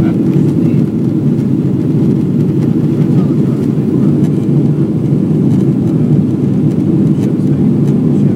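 Steady, loud cabin drone of a Boeing 777-300ER climbing out after takeoff: its GE90 turbofan engines and the rushing airflow, heard from inside the cabin.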